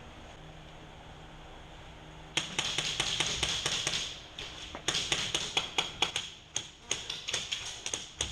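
Airsoft guns firing in rapid bursts of sharp clicks. The shooting starts about two and a half seconds in and comes again in two more bursts near five and near seven seconds.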